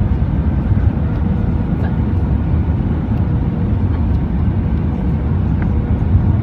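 Steady, loud cabin rumble of an Airbus A319 airliner, its engine and airflow noise heard from inside the passenger cabin, with a faint steady hum underneath.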